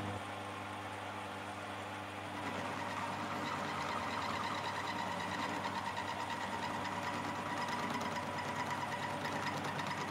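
Metal lathe running with its steady motor hum while a carbide-insert tool turns down the MIG-welded end of a milling machine drawbar; the cutting noise comes in about two seconds in and carries on as a steady, slightly gritty whine over the hum.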